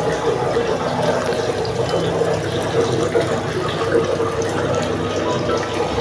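Singer 9 kg fully automatic top-load washing machine filling its drum with water at the start of a wash cycle: a steady rush of incoming water.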